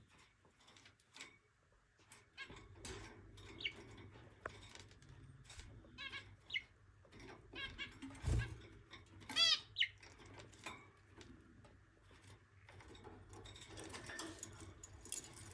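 Budgerigars chirping and chattering softly in short, warbling calls, the loudest about nine seconds in, among scattered small clicks and taps. A single low thump comes a little after eight seconds.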